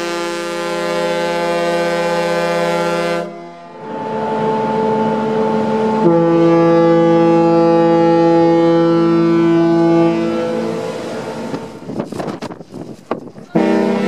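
BC Ferries ship's horn sounding long, steady blasts with a rich chord of several tones. One blast cuts off about three seconds in. After a short break another blast sounds, shifts to a lower, fuller chord about six seconds in and fades out near ten seconds. A fresh blast starts right at the end.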